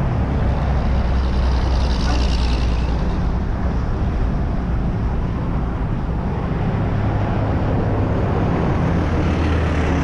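Wind buffeting the microphone as a steady low rumble, mixed with traffic noise from the highway bridge alongside. A hiss swells briefly about two seconds in.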